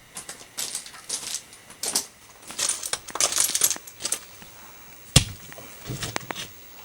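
Irregular short clinks, clatters and rustles, with one sharp knock about five seconds in.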